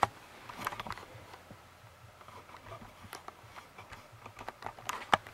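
Scattered light clicks and taps of a video camera being handled and tilted up, with a sharper click about five seconds in.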